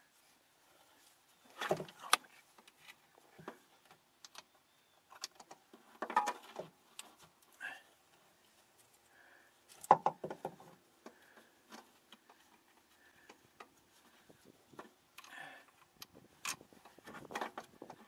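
Hand tools and metal parts clinking and rattling against a car's underside while a starter is being fitted, in scattered bursts with the loudest about ten seconds in.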